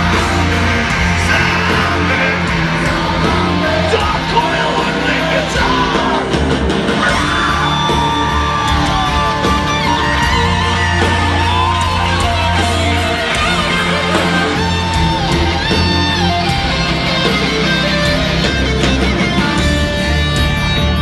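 Heavy rock band playing live through a large PA: distorted electric guitars, bass and drums, with a man singing over them, loud and continuous as heard from the crowd.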